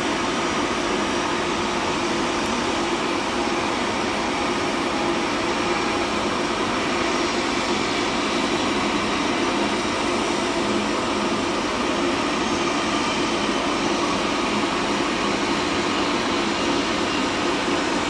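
Boeing 777 jet engines running at taxi power as the airliner taxis past, a steady even rush of jet noise with a low hum.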